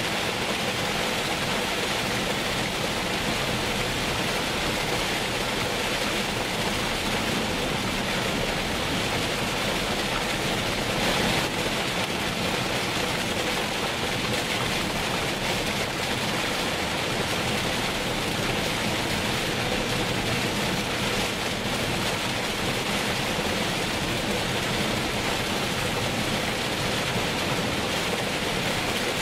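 Heavy rain on a moving car, heard from inside: a steady, dense hiss of rain and wet-road tyre noise, with one brief louder surge about eleven seconds in.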